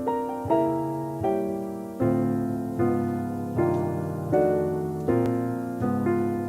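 Jazz piano playing a slow run of chords in a steady pulse, each struck and left to ring and fade.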